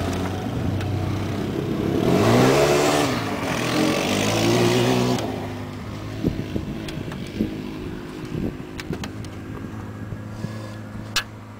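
An engine revs up and falls back twice, then settles to a steady idle, with scattered clanks and a sharp click near the end.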